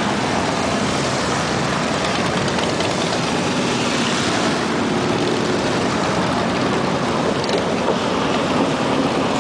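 Several Harley-Davidson motorcycles' V-twin engines running together in a steady din.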